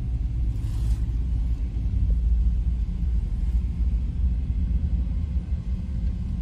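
Vehicle driving, heard from inside the cabin: a steady low rumble of engine and road noise.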